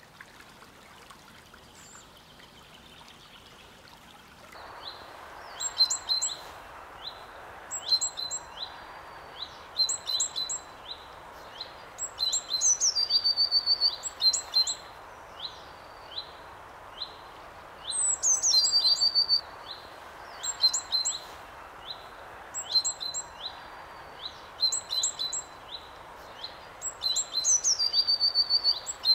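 Small songbirds singing: short high chirps repeated every second or so, and three louder, rapid trills that fall in pitch, over a steady rushing background that begins about four seconds in.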